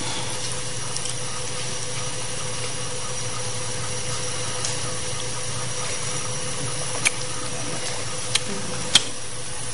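Food frying in a pan: a steady sizzling hiss, with three sharp clicks near the end.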